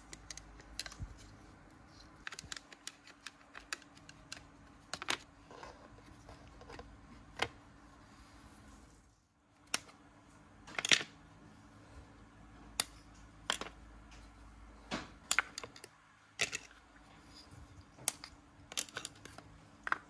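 Plastic one-handed bar clamps being handled: their ratchet triggers clicking as they are squeezed and released, and clamp bodies and pine strips tapping and knocking on a wooden tabletop. Scattered sharp clicks and taps at an uneven pace, the loudest about eleven seconds in.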